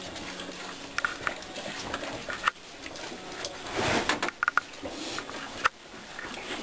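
Week-old piglets suckling and jostling at a nursing Tamworth sow's teats: scattered short squeaks, clicks and wet smacking sounds.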